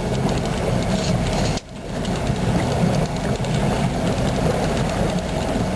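Charter boat's engine running steadily, with a brief cut-out about a second and a half in.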